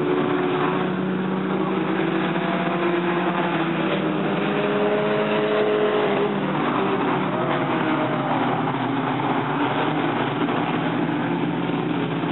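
A pack of dirt-track stock cars racing around the oval, several engines revving up and easing off so that their pitches rise and fall over one another above a steady engine noise.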